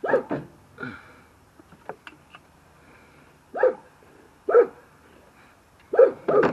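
A dog barking, about seven short barks in clusters with pauses between.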